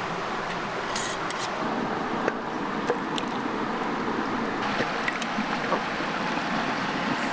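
Creek water rushing steadily, with a few light clicks and taps over it.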